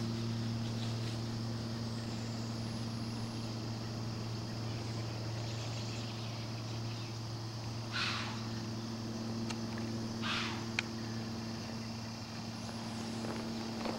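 A steady low hum runs throughout. Two brief rustles come about eight and ten seconds in, with a sharp click just after the second.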